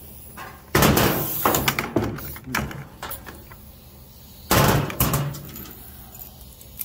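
Senco FramePro 701XP framing nailer being loaded and handled: two loud metallic sliding clanks, about a second in and again about four and a half seconds in, with lighter clicks and rattles between, as nail strips go into the magazine and the tool is moved on the bench.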